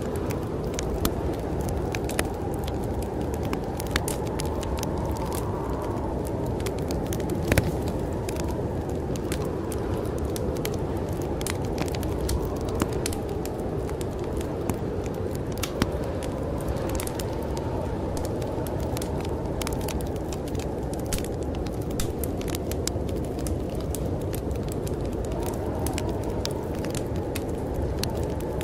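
Wood fire crackling and popping in a fireplace with many sharp irregular snaps, over a steady low rush of snowstorm wind.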